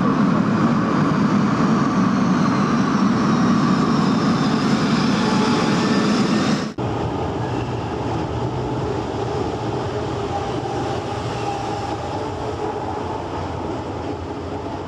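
Electric train running, with a high whine that slowly falls in pitch. About seven seconds in it breaks off suddenly and a slightly quieter, different train sound takes over.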